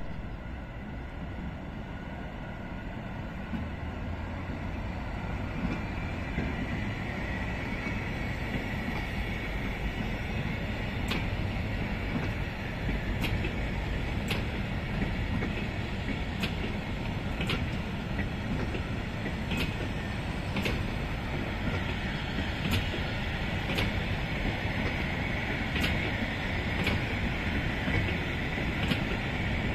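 A long train of pear-shaped hopper wagons rolls slowly past over a steady rumble. From about a third of the way in, the wheels click in pairs, about once a second, as the axles cross a rail joint.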